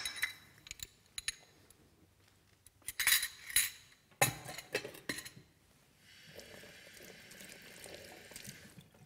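Glassware and dishes clinking and being set down, then, about six seconds in, a kitchen tap running steadily into a sink for about three seconds.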